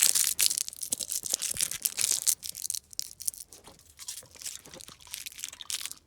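Rapid crackling, tearing and crunching as car interior trim and debris are pulled and rummaged through by hand, dense for the first half and thinning to scattered rustles and clicks after about three seconds.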